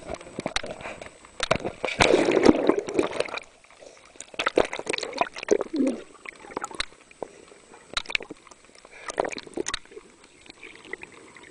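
Water sloshing and splashing against a waterproof camera as it is dunked in and out of the water, with a louder rush of splashing about two seconds in and scattered knocks and gurgles after.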